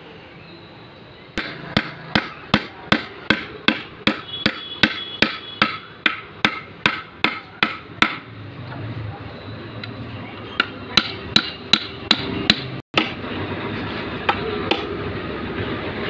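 Hammer driving nails into a wooden frame: a steady run of sharp strikes, about two or three a second, for several seconds, then a pause, then another quicker run and a few single blows near the end.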